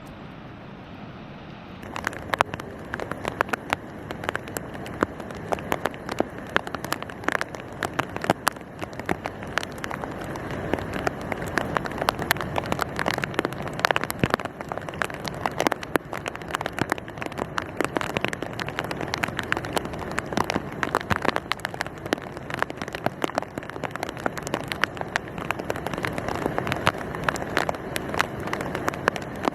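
Rain drops hitting a surface close to the microphone: a dense, irregular patter of sharp ticks over a steady hiss, starting about two seconds in.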